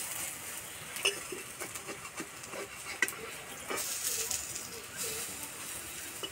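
Spinach-and-gram-flour fritters sizzling as they shallow-fry in mustard oil in a metal kadai. A metal spatula scrapes and taps against the pan a few times as they are turned.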